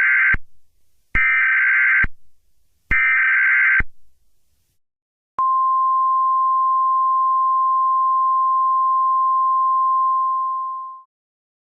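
Emergency Alert System SAME header: three short, harsh data bursts, then the EAS attention signal, a single steady tone held for about five and a half seconds before it fades out.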